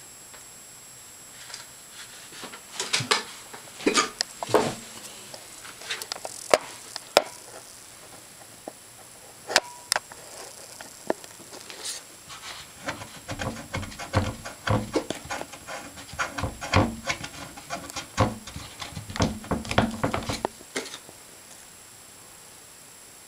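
House cat hiccuping: short, sharp hiccups and breaths, scattered at first and then coming thick and fast for about seven seconds from around halfway through.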